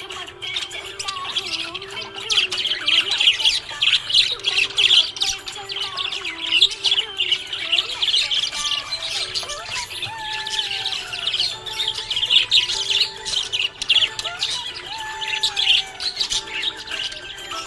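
Budgerigars chirping and warbling in a fast, continuous chatter of short, high chirps, over background music with a slow melody.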